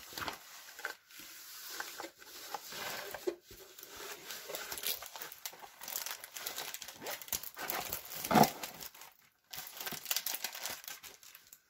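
A rolled diamond-painting canvas and its plastic cover film being unrolled and flattened by hand: irregular crinkling and crackling, with one louder crackle about eight seconds in.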